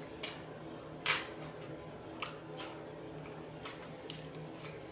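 Handling a small tub of putty and its plastic container: a few short, sharp clicks and squishes, the loudest about a second in, then smaller ones around two and a half and four seconds in.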